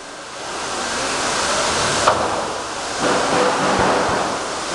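Steady rushing noise of factory machinery, with one sharp click about two seconds in.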